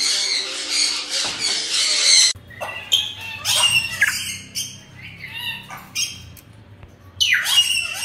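Dense, continuous squawking and chatter from a cage of African grey parrots, which cuts off abruptly about two seconds in. Then separate shrill squawks from white-bellied caiques, a call every second or so, with a louder burst of calls near the end.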